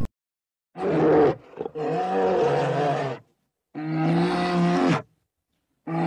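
Brown bear vocalizing: four separate calls, each held at a steady low pitch, the first short and the next three longer, with silent gaps between them.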